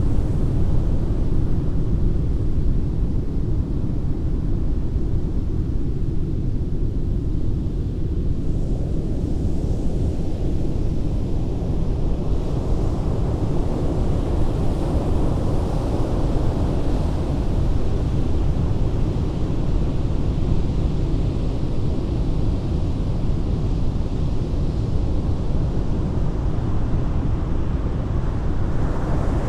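Ocean surf breaking on a beach: a continuous low rumble, with the wash of a wave swelling up about a third of the way in and staying full after.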